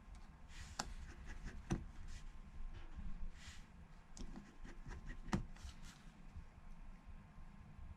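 Faint handling of small precision repair tools on an iPhone's internal metal parts as the side screws are placed and driven: light scraping with a few sharp clicks, the loudest about a second in, just under two seconds in and a little after five seconds.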